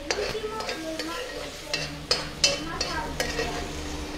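Large metal spoon scraping and knocking against a wok as strips of beef steak are stirred and scooped out, with the meat sizzling in hot oil. Several sharp scrapes and clacks over the steady sizzle.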